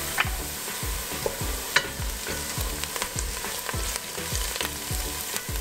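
Chopped onions sizzling in hot oil in a stainless steel pot while a wooden spoon stirs them, scraping and knocking against the pot a few times. The onions are beginning to brown.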